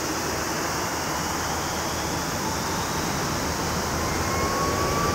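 Boeing 787-10 jet engines heard from afar, a steady rushing roar that grows slowly louder, with a faint whine rising in pitch near the end as the engines spool up for takeoff.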